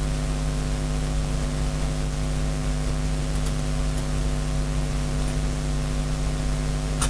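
Steady mains electrical hum with a constant hiss underneath, and a brief click right at the end.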